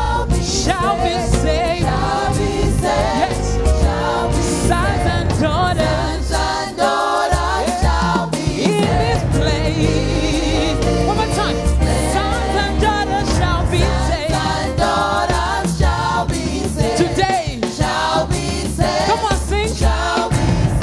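Gospel choir singing a worship song with live band accompaniment: a steady bass line and a regular drum beat under the voices.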